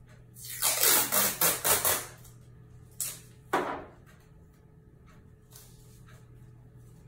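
Steam-sterilization indicator tape being pulled off its roll: a ripping peel lasting about a second and a half with several surges, a short click, then a second, brief rip.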